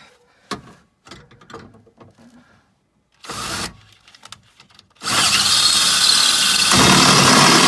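Power drill drilling out a steel pop rivet in a car door panel. A short burst about three seconds in, then a loud steady run from about five seconds in, its tone deepening near the end as the bit works through the rivet.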